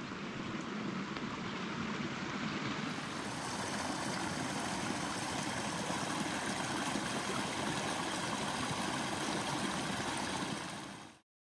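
Small mountain creek flowing, a steady rushing of water that fades out just before the end.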